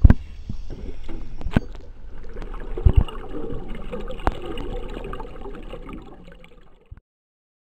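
Underwater sound of a scuba diver's exhaled bubbles gurgling steadily, with a few sharp clicks and low knocks, including a double knock about three seconds in. It all cuts off suddenly about seven seconds in.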